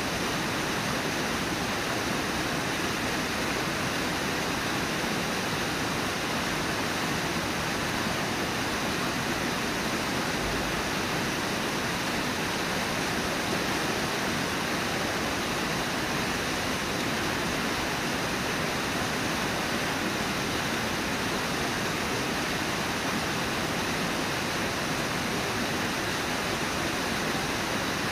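Brooks Falls: river water pouring over the falls and through the rapids, a steady, unbroken rush.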